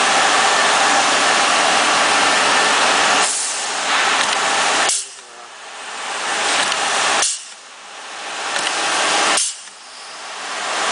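Compressed air hissing from a pneumatic crimping tool. A steady loud hiss runs for about five seconds, then three times the hiss swells for about two seconds and cuts off abruptly with a sharp click as the tool cycles.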